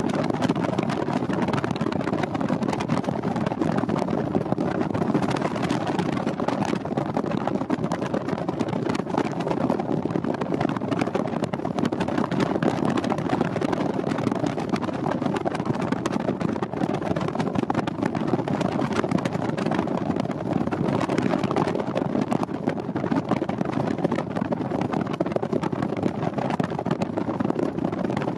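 Double-stack container freight train rolling past: a steady rumble of steel wheels on the rails, thick with fine rapid clatter.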